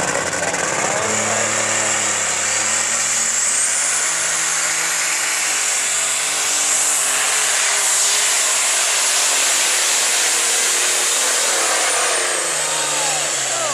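Open Super Stock pulling tractor's turbocharged diesel engine running at full power as it pulls the weight sled. A high turbo whine rises a few seconds in, holds, and falls away near the end.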